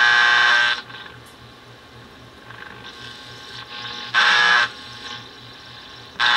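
Vintage GE AM clock radio's speaker giving out buzzing static in three short loud bursts: one at the start, one about four seconds in and one at the end, with a faint steady hiss between.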